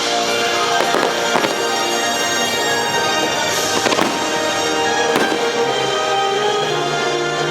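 Fireworks going off as sharp bangs over the show's orchestral soundtrack, with a cluster of bangs about a second in and single ones about four and five seconds in.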